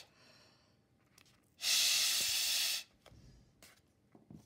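Breath blown hard through a drinking straw into a paper funnel holding a ping pong ball: one breathy rush of air lasting just over a second, starting about a second and a half in.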